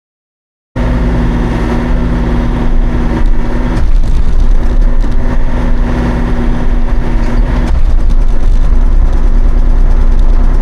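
Hauyee 35c mini excavator running loud and steady. It cuts in abruptly under a second in, and its pitch and load shift at about 4 and 8 seconds in.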